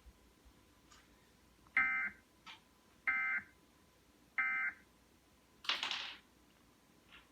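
Three short, identical bursts of Emergency Alert System end-of-message data tones, buzzy digital warbles about a second and a half apart, marking the close of the alert. A brief noisy hiss follows about a second after the last burst.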